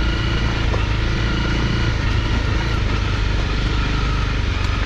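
Honda CRF250's single-cylinder four-stroke engine running at a steady cruise on a gravel track.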